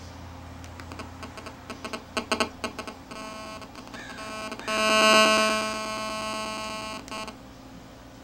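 Apple powered computer speaker, with only its power cord connected, picking up radio interference from a cell phone held beside it. A rapid stutter of clicks and pulses comes about a second in. Around the middle it turns to a loud, steady electronic buzz for a couple of seconds, then cuts off. This is the well-known buzz of a GSM phone's transmissions being picked up by the speaker's amplifier.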